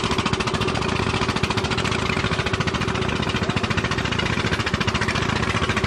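A small engine running steadily with a rapid, even chugging.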